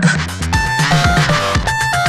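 Electronic music played on a hardware modular synthesizer: short synth notes stepping between pitches over a pulsing bass line, with quick low thumps that fall in pitch.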